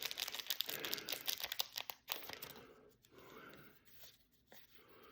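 Trading cards and their foil pack wrapper being handled, a dense crinkling rustle with small clicks that dies down about two and a half seconds in.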